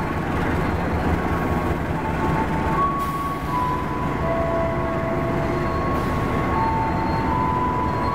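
Passenger train led by a GE CC206 diesel-electric locomotive rolling slowly past, with a steady rumble of engine and wheels on rail. Thin squealing tones come and go, shifting pitch every second or two, as the brakes are applied in a running brake test.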